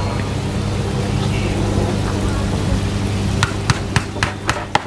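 Water splashing from hoses into carp holding tubs under a steady low hum. About three and a half seconds in, a fishmonger's knife strikes the carp on the cutting board in about six quick sharp knocks, roughly four a second.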